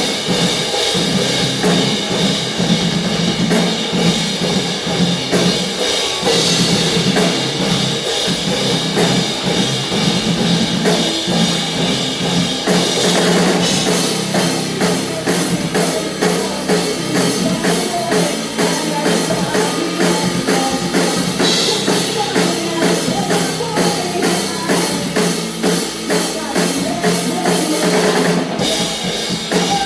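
Live rock band playing loudly, with the drum kit's kick and snare to the fore. The drumming turns to a steady, fast, even beat about halfway through.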